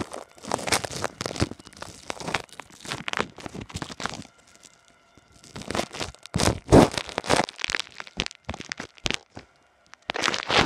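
Plastic zip-top bag crinkling and crackling close to the microphone, in bursts, with a short pause about four seconds in and the loudest crackling a couple of seconds later.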